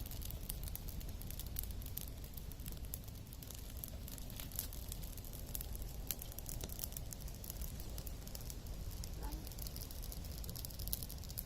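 Wood cooking fire crackling, with many small irregular pops over a low steady rumble.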